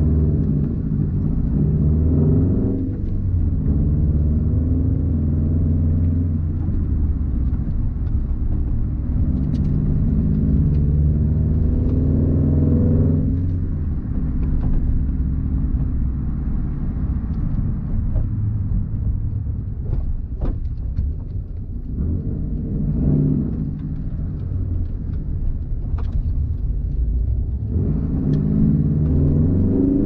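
2004 Subaru WRX STi's turbocharged 2.5-litre flat-four through a Tomei exhaust, heard from inside the cabin. It pulls up through the revs about four times under acceleration, each pull dropping away at a gear change or lift-off, with a steady low drone at light throttle in between.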